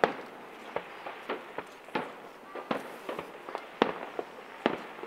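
Fireworks bursting: a quick, uneven series of sharp bangs, about a dozen in five seconds, some louder and some fainter.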